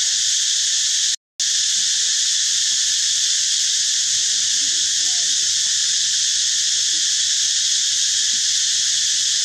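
Steady, loud drone of an insect chorus, cutting out completely for a moment about a second in. A few faint short squeaks sound underneath it.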